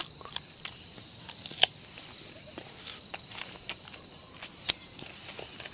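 Irregular crackling and rustling of leaves and plant stems, with a faint steady high insect trill behind it.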